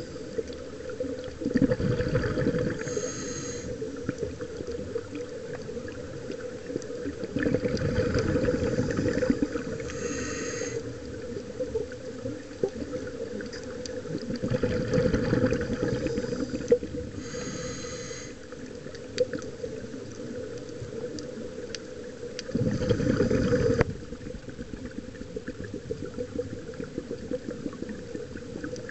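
Scuba regulator breathing heard underwater: four slow breath cycles, each a long rumbling burst of exhaled bubbles followed by a short hiss of inhaled air through the demand valve, over a steady low hum.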